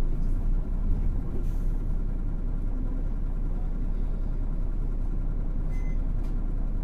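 Hino Blue Ribbon City (KL-HU2PMEK) city bus running, a steady low engine and road rumble with a few faint clicks.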